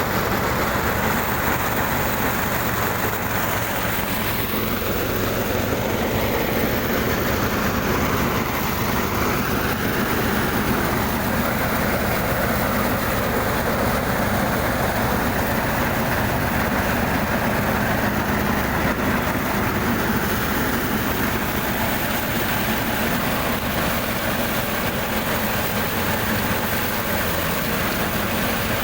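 A small engine-driven machine running steadily, a constant mechanical din with no change in speed.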